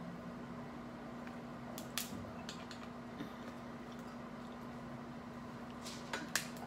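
Cooked shrimp and crab-leg shells cracking and snapping as they are peeled by hand: a few sharp clicks about two seconds in and a cluster of louder snaps near the end, over a steady low hum.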